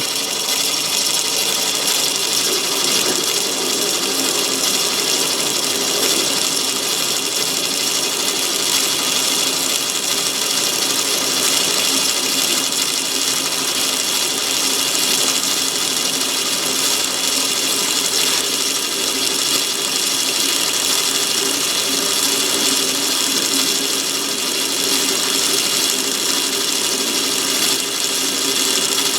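Myford ML7 lathe running steadily at slowed speed while a parting tool in a rear tool post cuts into a cold-rolled steel bar.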